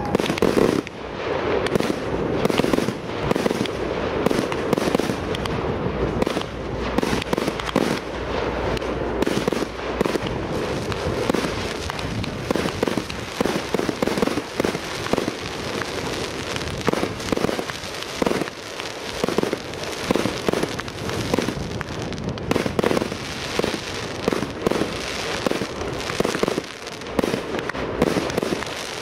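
Two multi-shot firework cakes firing together: a dense, unbroken barrage of launches and aerial bursts, several reports a second.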